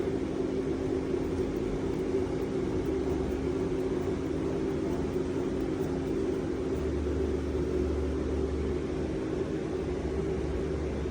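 Retrofitted CNC machine running on servo drives: a steady mechanical hum, with a deeper hum coming in about three seconds in and again from about seven seconds.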